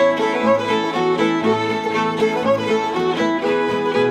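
Old-time string band playing a lively fiddle tune: two fiddles carry the melody over guitar, clawhammer-style banjo and mandolin, with a guitar bass note about once a second.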